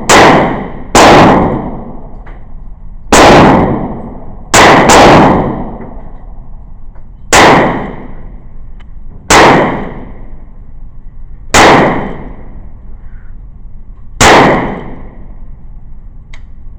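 Eight gunshots fired one at a time at an irregular pace, mostly one to three seconds apart, with two in quick succession about five seconds in; each shot is loud and sharp with a short ringing tail.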